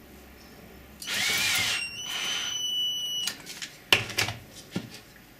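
Small power drill running in two short bursts, the first speeding up and slowing, the second at a steady pitch. A few sharp metallic clicks and knocks follow as parts are handled.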